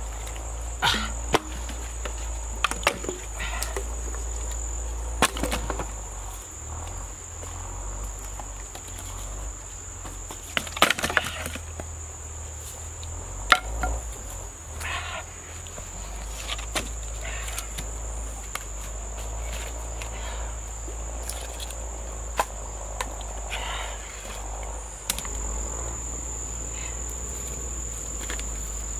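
A steady high-pitched insect drone, with scattered sharp knocks and clacks of dry firewood sticks being handled and laid for a small fire.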